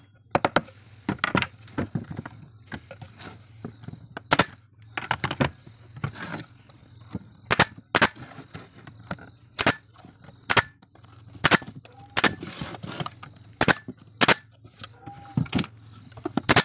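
Hammer striking a pine wood frame in sharp, irregular blows, about one or two a second.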